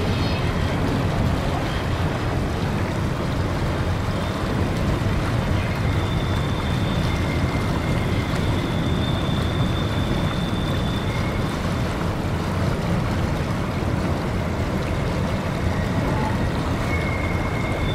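Steady low rumble of a long intermodal freight train crossing a steel trestle bridge, mixed with the rush of the creek's water. Faint high-pitched squeals come and go on top.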